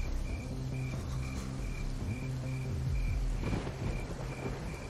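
A cricket chirping steadily, short high pulses about twice a second, over a low steady hum.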